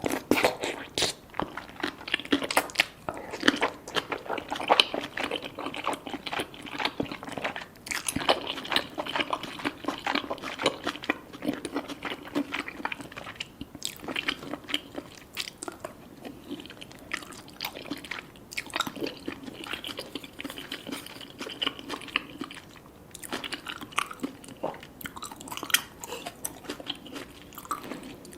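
Close-miked mouth sounds of eating chewy cheesy rice cakes and fish balls: steady chewing and biting with many quick wet smacks and clicks.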